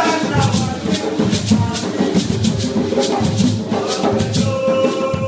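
Live hand-drum ensemble playing a driving rhythm together, with a hand shaker rattling a steady beat of about four strokes a second over the drums. Voices join in over the top.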